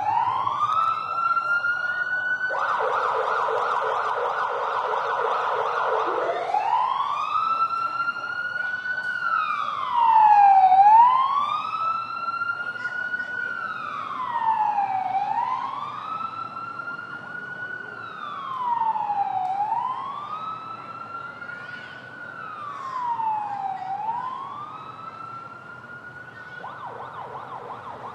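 Emergency vehicle siren in a slow wail, rising and falling about every four seconds, switching briefly to a fast yelp early on and again near the end. It grows fainter over the second half as it moves away.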